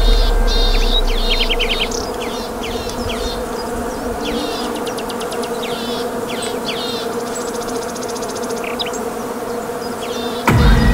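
Forest ambience: a steady buzzing drone of insects, with many short bird chirps and trills above it. A low rumble fades out over the first two seconds, and a sudden loud, deep sound starts just before the end.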